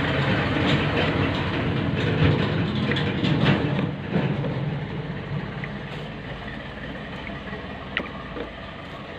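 Low, steady engine-like hum that gradually grows fainter, with a couple of faint ticks.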